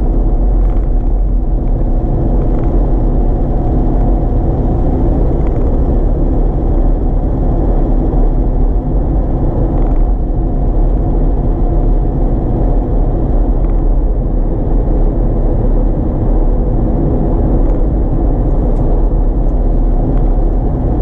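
Steady low rumble inside a car's cabin while cruising on a highway: engine hum and tyre noise on the road, unchanging throughout.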